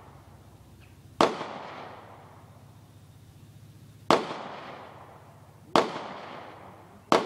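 Four shots from a Ruger SR9c 9mm pistol, unevenly spaced a second and a half to three seconds apart, each followed by a decaying echo.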